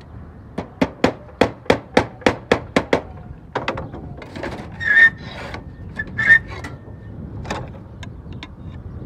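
Slater's hammer nailing a slate to the chimney's wooden boarding: about ten quick, sharp blows, roughly four a second, in the first three seconds. Then slate scrapes and rubs against slate as the next round slate is set in place, with one more knock later.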